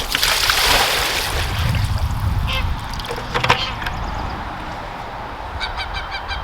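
Rainwater poured from a container into a bucket, splashing loudly for the first two or three seconds, with a couple of knocks after it. Near the end, geese start honking in a quick run of calls.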